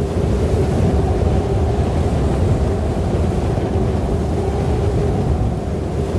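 Snowstorm wind blowing steadily, a deep rushing noise with a faint held tone running through it.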